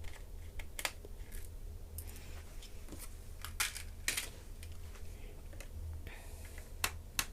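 Scattered small clicks and taps of a screwdriver working the bottom-cover screws out of a Lenovo ThinkPad E450 laptop's plastic base, at irregular intervals, over a low steady hum.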